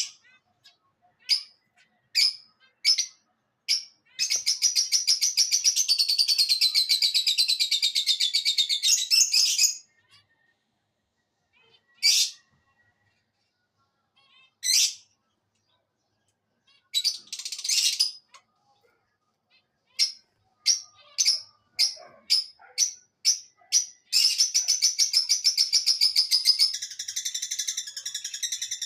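A parrot shouting: single short, high-pitched calls, broken by two long runs of rapid chattering calls of several seconds each, one near the start and one near the end.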